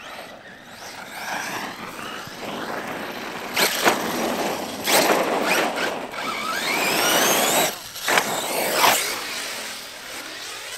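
Electric RC truck driven hard, its motor whine sweeping up and down in pitch as the throttle opens and closes, over the hiss and scrabble of its tyres. Several louder bursts of acceleration come in the middle.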